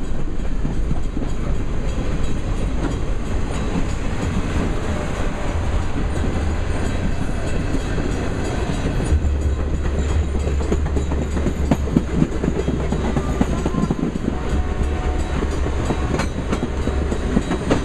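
Boxcars and passenger coaches of the Canadian Pacific Holiday Train rolling steadily past: a continuous rumble with wheels clicking and clattering over the rail joints. The low rumble grows heavier about nine seconds in.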